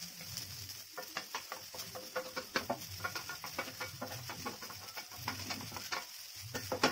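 Vegetables sizzling in a brass kadhai, with a wooden spatula scraping and tapping against the pan in quick irregular clicks; a sharp knock near the end as the brass lid is handled over the pan.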